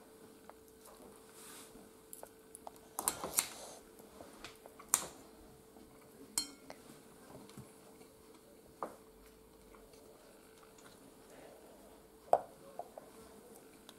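Metal fork and knife clinking and scraping against a ceramic bowl: scattered sharp clinks, the loudest about 3, 5 and 12 seconds in, over a faint steady hum.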